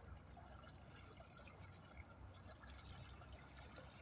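Faint trickling of floodwater draining through a curbside storm drain grate.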